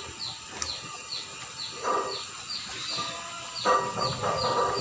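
Animal calls outdoors: a steady string of short, high falling chirps, about three a second, with two louder pitched calls, one about two seconds in and a longer one near the end.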